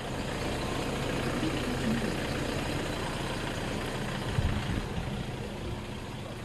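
A motor or engine running steadily with a low hum, with one low thump about four seconds in.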